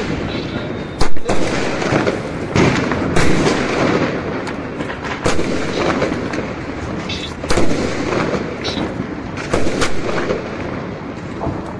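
Aerial fireworks firing and bursting overhead: irregular sharp bangs over continuous crackling, the loudest bang about a second in and another around seven and a half seconds.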